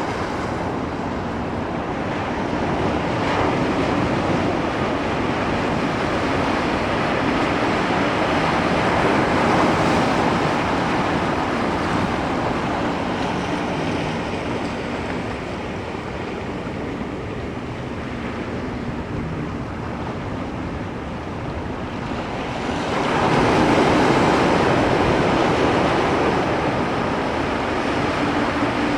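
Ocean waves: a continuous wash of surf that swells and eases, with a louder wave surging in about three-quarters of the way through.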